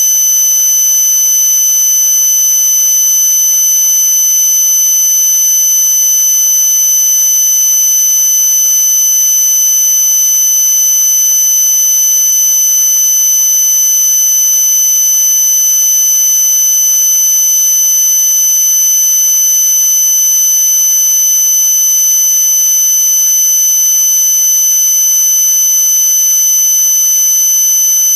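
A single high-pitched electronic tone held without a break or any change, over a steady hiss.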